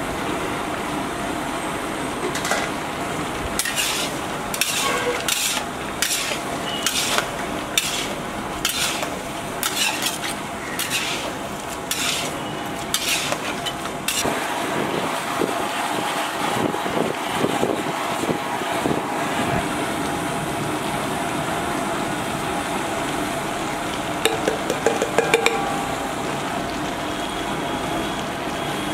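Metal spatula scraping and stirring chicken pieces in a large iron kadai over a steady frying sizzle, with a regular run of scrapes, about two a second, in the first half. A short cluster of sharp clicks comes near the end.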